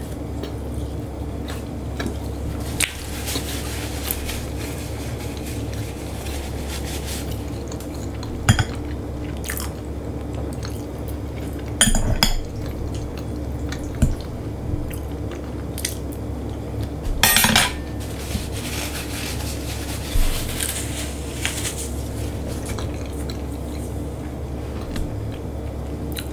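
Close-up eating sounds: chewing and biting food, with occasional sharp clinks and knocks of cutlery and dishes. The loudest clusters come about halfway and two-thirds of the way through, over a steady low background hum.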